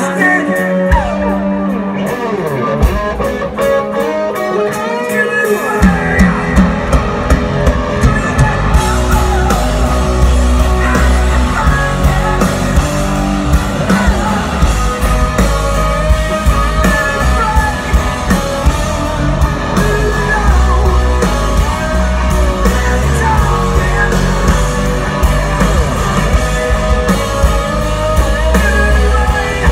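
Live rock band playing, recorded from the audience: electric guitars at first, joined about six seconds in by bass and a steady drum beat.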